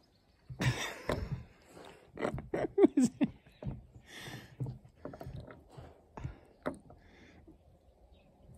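Bernese mountain dog puppy chewing and gnawing close up: irregular wet mouth clicks and smacks, busiest and loudest from about one to four seconds in, then sparser.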